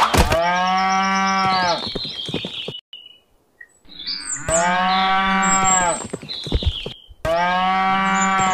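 Cow mooing: three long, drawn-out moos with short pauses between them.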